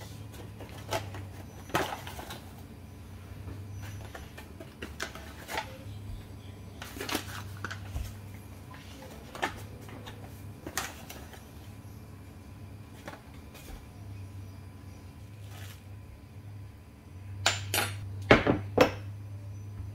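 A spoon clinking and scraping against an enamel mixing bowl, with packets and a jar knocked down on the countertop: scattered clinks and knocks, then a quick cluster of louder ones near the end.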